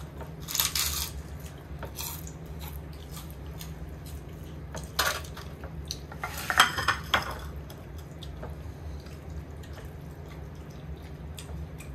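Cutlery clinking and scraping on plates as people eat, with light clicks throughout and a few louder short noises about half a second in and around five and six and a half seconds, over a steady low hum.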